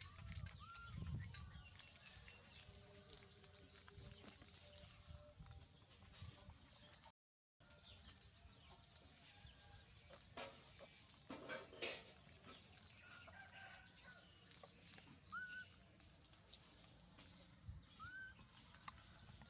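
Faint farmyard chickens clucking, with a few short rising chirps and scattered small clicks and rustles. The sound drops out completely for a moment about seven seconds in.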